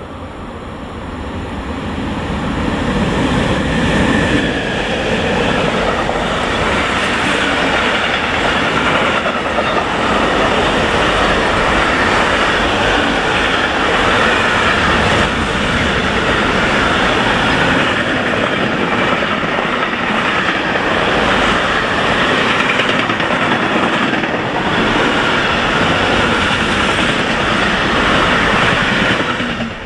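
Intermodal freight train of container wagons, hauled by a Hector Rail electric locomotive, passing at speed close by: a loud, steady noise of wheels rolling over the rails. It builds over the first few seconds as the train arrives and cuts off suddenly near the end.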